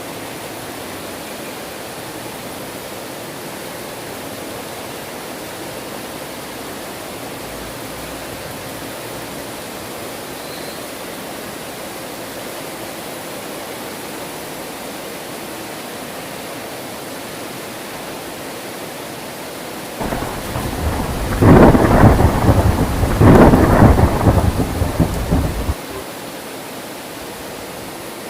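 Steady heavy rain, with a loud thunderclap about twenty seconds in that rumbles in two swells for about six seconds and then stops abruptly.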